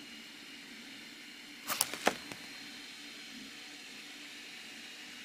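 A paper page of a printed manual being turned: a short crisp rustle with a few clicks about two seconds in, over a steady faint hiss.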